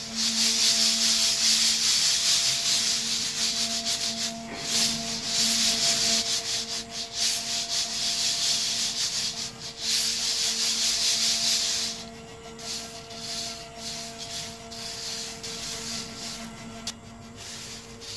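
Freshly roasted coffee beans stirred and rubbed by hand in a stainless mesh sieve, a steady rustling hiss that turns softer about twelve seconds in. A faint steady hum runs underneath.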